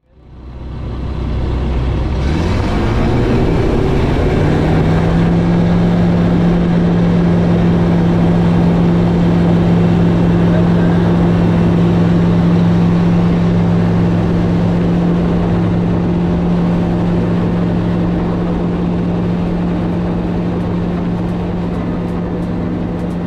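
Zenith STOL light aircraft's engine and propeller heard from inside the cockpit. The engine fades in, rises in pitch over the first few seconds as power comes up, then runs steady and loud at takeoff power through the takeoff roll and climb-out.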